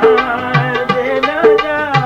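A male ghazal singer holds a wavering sung line over tabla accompaniment. The tabla plays regular strokes, with deep bass strokes about half a second and a second and a half in.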